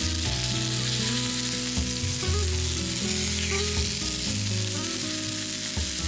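Hamburger patties sizzling in oil in a frying pan as they sear, over background music.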